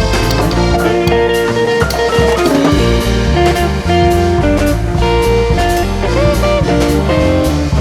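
Upbeat instrumental music: plucked guitar over a steady drum beat and bass line.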